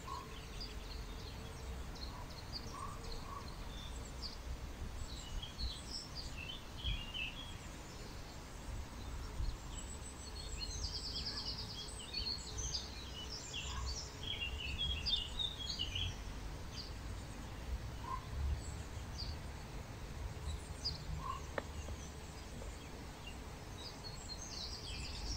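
Songbirds chirping and singing in the trees, with short calls scattered throughout and a rapid trill about eleven seconds in, over a steady low outdoor rumble.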